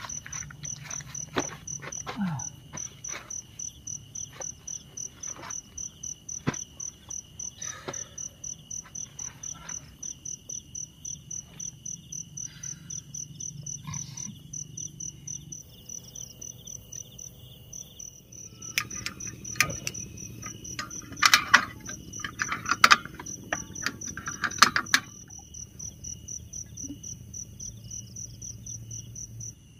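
Night insects, crickets, chirping in a steady, fast pulsing rhythm of about three chirps a second, one high-pitched and one lower. A cluster of sharp knocks and rustles, the loudest sounds, comes about two-thirds of the way through.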